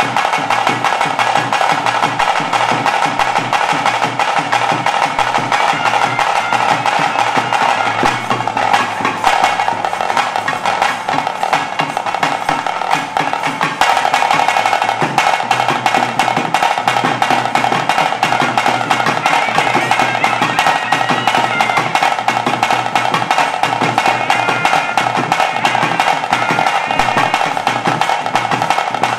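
Bhoota Kola ritual music: fast, dense drumming with a steady, high reed pipe melody held over it.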